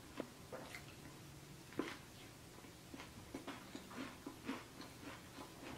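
Faint, irregular wet mouth clicks and smacks of someone chewing a mouthful of Subway sandwich.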